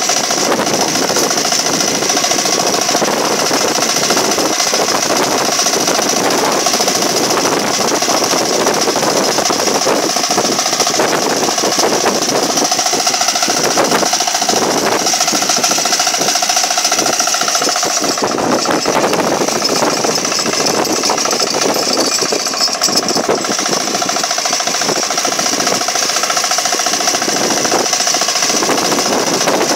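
Small engine of a walking hand tractor (kuliglig) running steadily and loudly under load as it plows through grassy soil.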